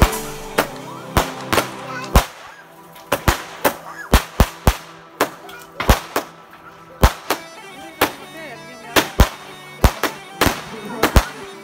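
Fireworks going off overhead: a rapid, irregular series of sharp bangs, some close together in twos and threes, about two dozen in all. A bagpipe tune fades out over the first couple of seconds.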